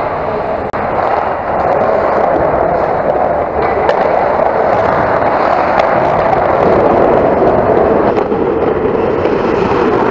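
Loud, steady rushing rumble of ice hockey play picked up by a camera fixed on the goal net, with a few faint clicks. The noise shifts lower about eight seconds in, where the recording switches to the camera at the other goal.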